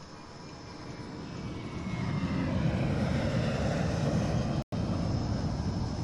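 Aircraft flypast: a deep engine rumble that swells over the first two seconds with a faint falling whine, then holds steady. It drops out for an instant about three-quarters of the way through.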